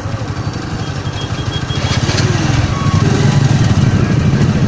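Motorcycle engines idling with a rapid, steady low putter, growing louder about three seconds in as a motorbike with a sidecar rides up close.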